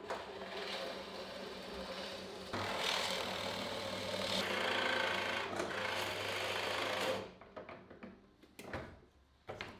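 Benchtop drill press running, then boring a large hole in plywood under load from about two and a half seconds in; the cutting sound cuts off suddenly about seven seconds in, followed by a few light knocks. The press keeps jamming on the big bit, which the maker takes as a sign that it is too small a machine for it.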